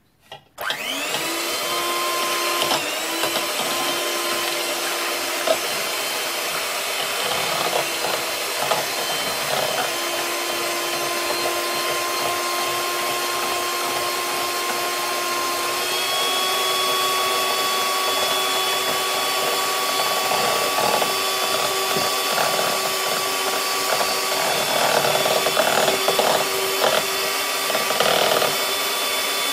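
Electric hand mixer switching on and running steadily, beating raw eggs in a bowl. Its motor pitch steps up slightly about halfway through, and a few clattering knocks come near the end.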